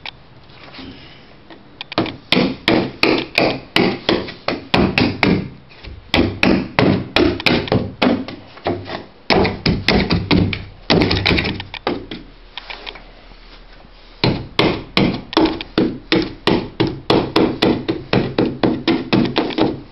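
A hand tool struck again and again to set stretched carpet onto the tack strip along the wall: runs of sharp knocks, about four a second, with short pauses between runs and a longer one about two-thirds of the way in.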